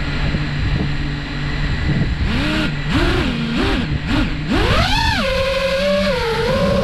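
GepRC MARK5 HD 5-inch FPV quadcopter's brushless motors and propellers: a low idle hum while armed on the ground, then four short throttle blips. About five seconds in comes a steep rising whine as it takes off, which settles into a steady motor whine in flight.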